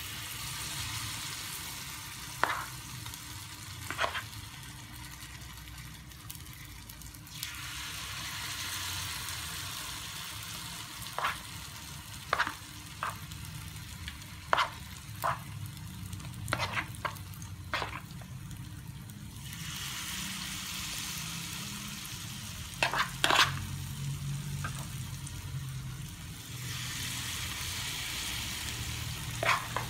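Batter-coated banana pieces frying in oil in a pan, a steady sizzle that grows louder in stretches as more pieces go in. Sharp clicks of the spoon against the bowl and pan come now and then, a few of them in quick pairs.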